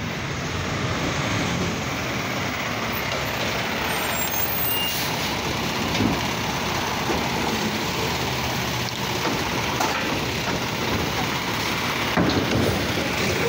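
Automated side-loader garbage truck running close by, its engine and hydraulic arm working as it pulls up to a curbside trash cart and grabs and lifts it. The noise is steady, with a few brief louder sounds.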